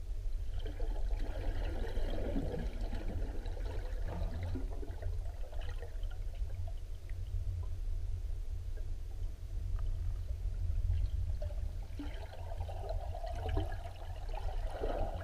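River current heard underwater through the camera housing: a steady, muffled low rumble of flowing water, with stretches of louder rushing, crackling water noise in the first few seconds and again near the end.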